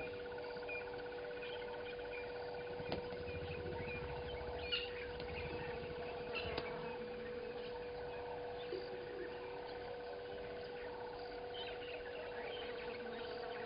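Outdoor ambience at a bush waterhole: scattered short bird chirps over a steady high trill and a constant hum. A low rumble runs for a few seconds, starting about three seconds in, with a few faint clicks.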